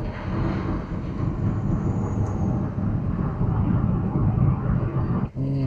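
Car driving along a road, heard from inside the cabin: steady engine and road noise. It cuts off abruptly near the end.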